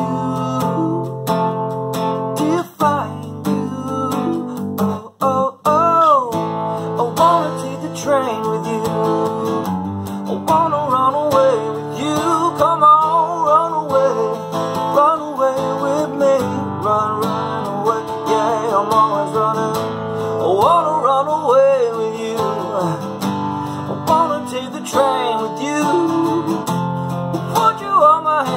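Strummed acoustic guitar with a man singing over it; the strumming breaks off briefly twice in the first few seconds.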